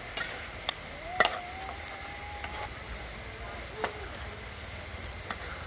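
Metal spatulas clinking and scraping against a steel wok while glass noodles are tossed in a stir-fry, a handful of sharp clinks at uneven intervals. A faint drawn-out call rises and holds about a second in.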